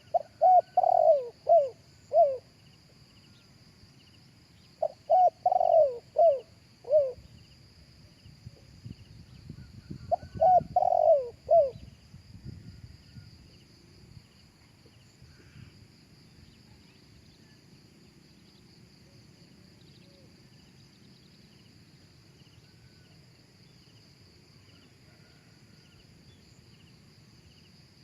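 Spotted dove cooing: three phrases of four or five falling coo notes, a few seconds apart, in the first twelve seconds, then only a steady high insect drone.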